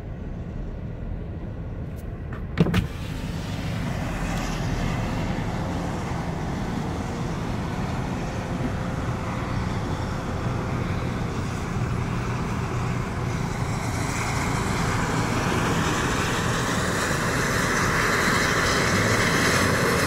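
Road and traffic noise around a car in slow highway traffic, getting gradually louder. A few sharp clicks and a short knock come about two and a half seconds in.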